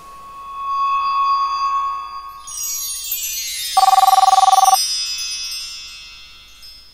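Chime sound effects: a held tone, then a shimmering cascade of high chime-like tones. About four seconds in comes a trilling two-tone ring like a telephone bell, lasting about a second, and the chimes then fade away.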